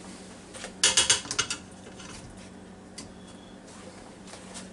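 Kitchen tongs clanking against the metal rack and inner pot of a Ninja Foodi cooker while a steak is lifted out. There is a quick cluster of clanks about a second in and a single click near three seconds.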